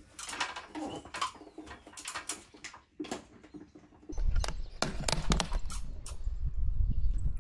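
Light scattered ticks, then from about four seconds in a strong wind rumble on the microphone, with water splashing from a plastic bottle onto a camper's roof vent lid during a leak test.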